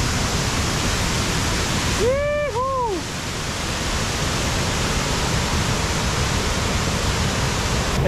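A high-volume waterfall rushes with a steady, heavy noise, swollen after three days of rain. About two seconds in, two short pitched calls each rise and then fall.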